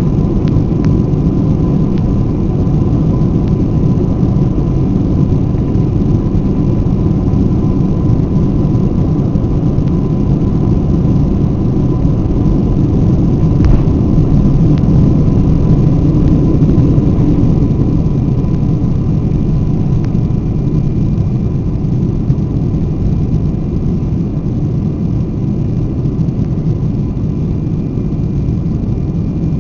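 Cabin noise of a Boeing 747-400 taking off, heard from a window seat over the wing: the steady, heavy low rush of its four turbofan engines at takeoff thrust through the takeoff roll and liftoff. A thin steady whine fades about halfway through, and the noise eases slightly toward the end as the jet climbs.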